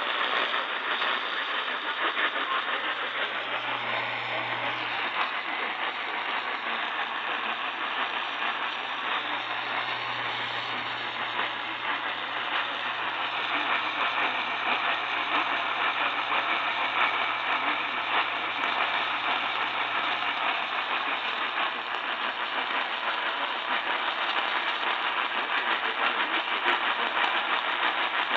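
Radio receiver hissing with static while straining to pull in a weak, distant station. A steady low hum runs underneath and fades out about two-thirds of the way through.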